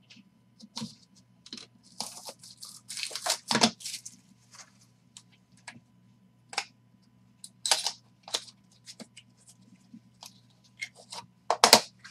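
A utility knife slicing open the seal of a trading-card box and the packaging being torn open, a cluster of noisy scrapes and tears about two to four seconds in. Then scattered clicks and rustles of cardboard and plastic card holders being handled, with a sharp knock near the end, over a faint steady hum.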